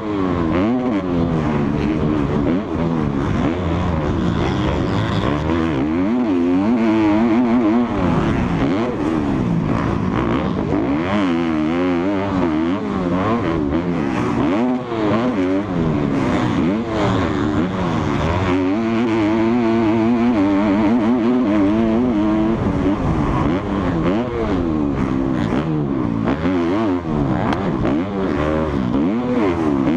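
Motocross bike engine heard from on board at full race pace, revving up and dropping back again and again as the rider works the throttle and shifts through the gears, with short knocks from the bike hitting the rough track.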